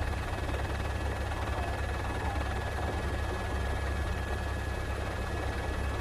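Steady low rumble of a news helicopter's rotors and engine, with a thin high whine held at one pitch throughout.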